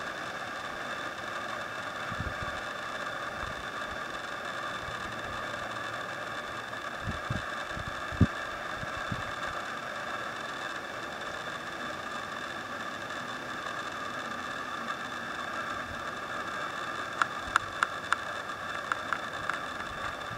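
Steady outdoor background hum with no single clear source, broken by a few low thumps and, near the end, a quick run of sharp clicks.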